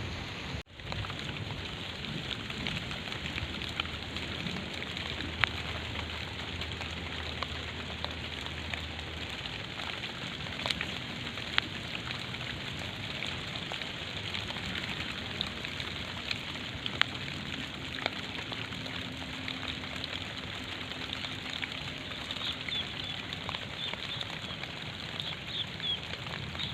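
Steady hiss of rain with scattered sharp drop ticks, and a few faint bird chirps near the start and again near the end. The sound drops out briefly about half a second in.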